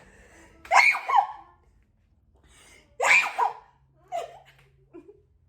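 A person sneezing twice, each sneeze loud and sudden: once about a second in and again about three seconds in. Fainter short breaths follow.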